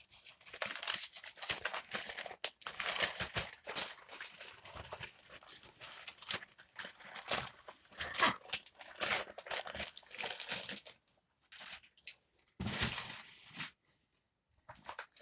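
A mail package being opened by hand: irregular crinkling and tearing of the packaging, with a short lull and then a louder rustle near the end.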